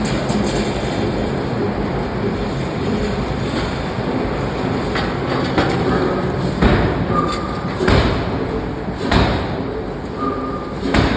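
Forging-shop machinery running with a steady mechanical din, and five heavy thuds about one to two seconds apart in the second half. Two short, high, thin tones sound between the thuds.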